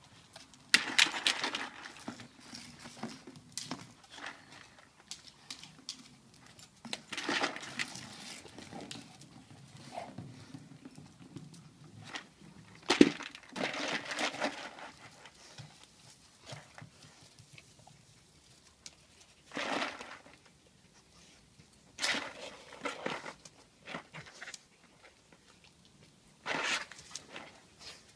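A Labrador nosing a plastic treat-maze toy around on paving slabs. The toy scrapes and clatters in irregular bursts every few seconds, the loudest about halfway through, with quieter stretches between.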